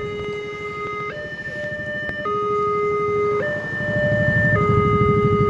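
Railway level-crossing warning alarm sounding its alternating two-tone signal, switching pitch about once a second while the barrier is down. Underneath, motorcycle engines idle with a low pulsing rumble that grows louder about halfway through.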